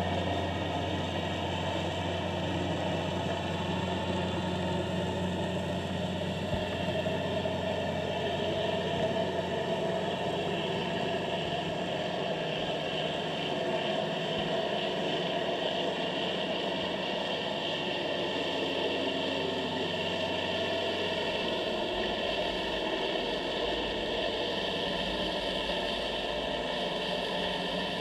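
Steady, engine-like mechanical hum with hiss, picked up through water by an underwater camera. A deep drone fades out around ten to fourteen seconds in, and a lower rumble comes in after about twenty seconds.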